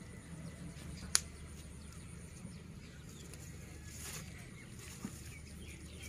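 Rustling of wet grass and weeds being pulled and handled by hand, with one sharp click about a second in and a smaller one near the end.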